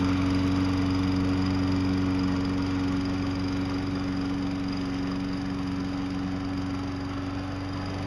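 Self-propelled walk-behind lawn mower's small engine running at a steady speed while it pushes snow with a homemade plow blade, growing slowly fainter as it moves away.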